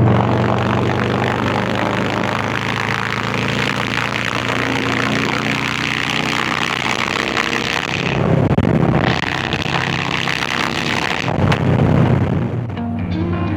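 Harley-Davidson Low Rider V-twin exhaust under way, a steady low beat over wind and road hiss, swelling briefly twice, about eight and eleven seconds in. Music comes in near the end.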